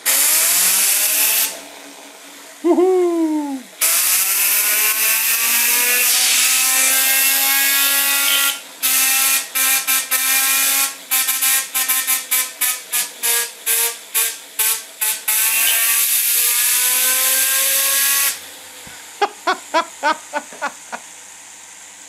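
A fixed scooter wheel spun at very high speed by a power tool. The whine rises in pitch as it spins up, stops after about a second and a half, then runs again for about fourteen seconds, climbing in pitch. In the second half it is pulsed on and off rapidly, two or three times a second.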